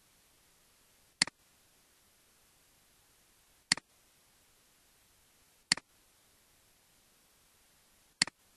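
Four computer mouse clicks, each a sharp press followed at once by a softer release, about two to two and a half seconds apart, over a faint steady hiss.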